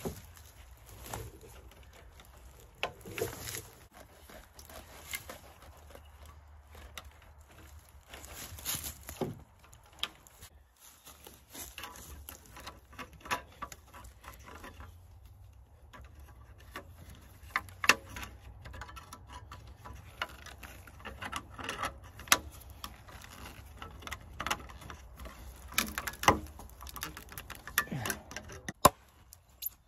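Irregular clicks, taps and knocks of hands-on fence work, coming more often and more sharply in the second half, over a low steady rumble.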